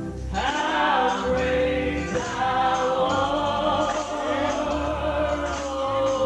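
A man singing a gospel hymn into a microphone in long held notes, over a steady low organ accompaniment.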